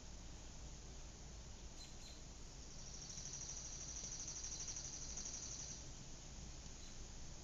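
A high, rapidly pulsing trill that lasts about three seconds, starting about three seconds in, from a small animal such as an insect or bird, over a faint low background rumble. A couple of brief high chirps come about a second before it.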